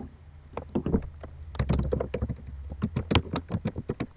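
Typing on a computer keyboard: a rapid, uneven run of key clicks, sparse at first and quick from about one and a half seconds in, after one sharp click at the very start.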